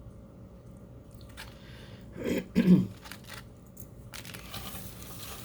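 Two short, loud noises a little past two seconds in, then from about four seconds in the steady crinkling rustle of small packaging being handled.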